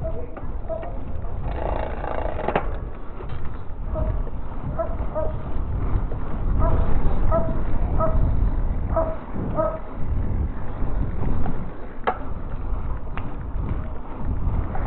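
Wind buffeting the microphone and tyre rumble from a mountain bike rolling along a paved street, with a couple of sharp knocks from bumps. Through the middle, a dog barks in a run of short, high yaps about two a second.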